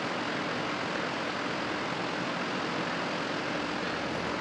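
Steady rushing background noise, like air moving, with no distinct knocks, clicks or tool sounds.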